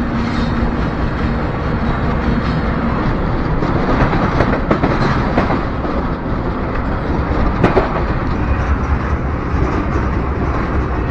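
A freight train rolling along, heard from aboard: a steady loud rumble of steel wheels on rail with scattered sharp clanks and clacks, the strongest a little past the middle.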